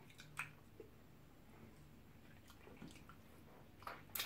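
Near silence with a few faint, short, wet mouth smacks from eating pounded yam and ogbono soup by hand, one about half a second in and a louder pair just before the end.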